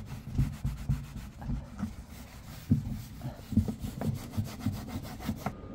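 Oil drainer being wiped clean: irregular rubbing strokes with soft knocks and short clicks, busiest in the second half.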